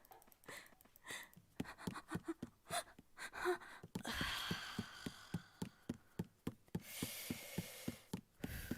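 A person breathing: short breaths with soft clicks in the first half, then from about four seconds in a long, hissy breath with a quick even run of soft knocks under it.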